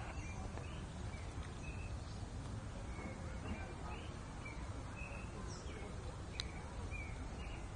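Ducklings peeping: short high chirps repeated every half second or so, over a steady low background rumble. One sharp click about six seconds in.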